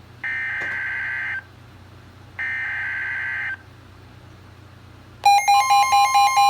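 Emergency Alert System data header: two harsh, buzzy bursts of digital tones, each about a second long and a second apart. About five seconds in, the loud, steady EAS attention tone starts.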